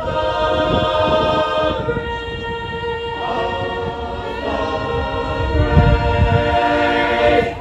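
Small mixed-voice high-school choir singing a cappella, holding long chords that change a few times, with a low rumble underneath.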